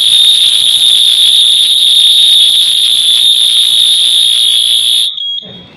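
Fire alarm sounder on a Kidde Aegis suppression release system giving a loud, continuous high-pitched tone that cuts off suddenly about five seconds in. The system is in alarm, with its agent-discharge countdown running.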